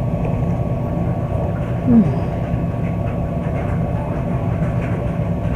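Steady low rumble and hum of running machinery, with a short falling vocal sound about two seconds in.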